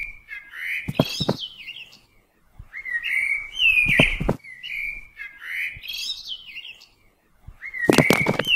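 A songbird singing the same short phrase of whistled notes that slide up and down, repeated four times about every three seconds. Sharp clicks land inside several of the phrases, with a quick cluster of them near the end.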